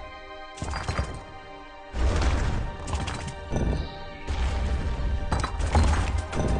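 Play'n Go Contact slot game audio: background music with heavy stone-block thuds and crashes as symbol blocks drop into the grid, in several bursts.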